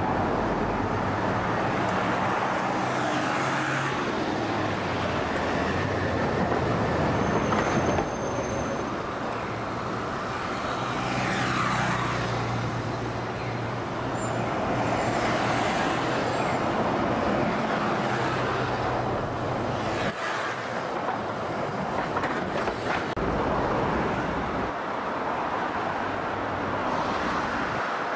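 City street traffic: cars and buses passing, with a low engine hum and tyre noise that swell and fade as vehicles go by.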